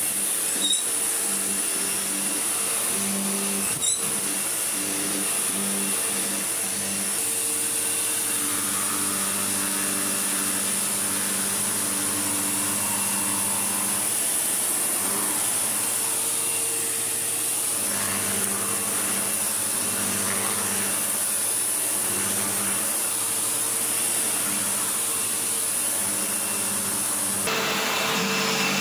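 Sebo Automatic X7 upright vacuum cleaner running steadily as it is pushed over rugs, its motor drone holding a high whine. There are two short clicks near the start, and the sound changes abruptly near the end.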